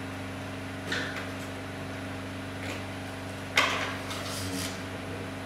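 A few sharp plastic-and-metal clicks and knocks as a RAM module is unlatched and pulled from a desktop PC's motherboard slot. The loudest click comes about three and a half seconds in, over a steady hum.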